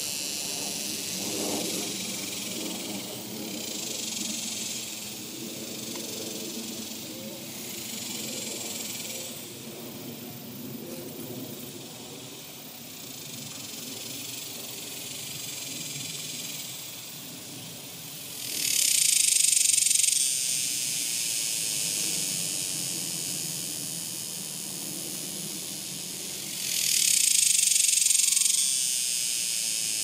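Cicadas buzzing in the trees: a steady high-pitched drone, with two louder swelling calls of about two seconds each, one about two-thirds of the way in and one near the end.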